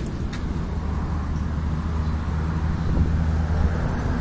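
Foton ETX ten-wheel dump truck's diesel engine idling with a steady low hum. Two light clicks come right at the start.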